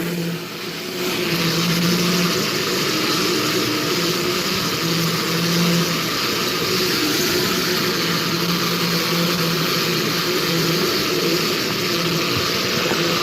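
Wrapping machine running steadily after being restarted at a faster setting: an even mechanical noise with a low motor hum that swells and fades in short spells.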